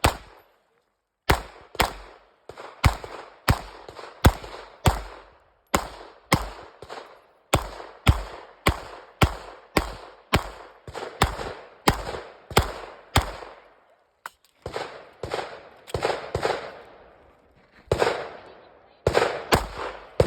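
Pistol fired in a long string of single shots at a steady pace of about one and a half shots a second, each with a short echo. The firing breaks off briefly about a second in and again around fourteen seconds in, then carries on.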